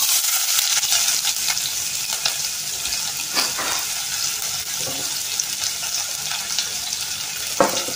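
Chopped onion sizzling in hot oil and ghee with cumin and mustard seeds in a stainless steel pressure cooker pan. The sizzle starts sharply as the onion goes in, then settles into a steady, slightly softer frying hiss.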